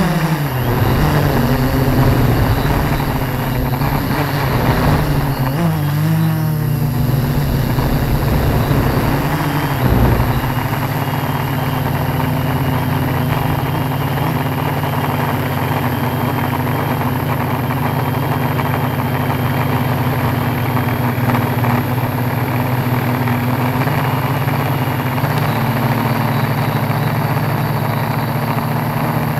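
Tarot 680 Pro hexacopter's brushless motors and propellers humming, the pitch wavering up and down over roughly the first ten seconds as the throttle changes, then holding steady.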